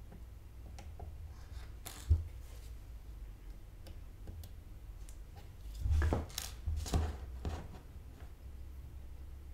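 Small handling clicks and taps from soldering work on a motherboard: one sharp click about two seconds in, then a cluster of taps and knocks near the middle, over a low steady hum.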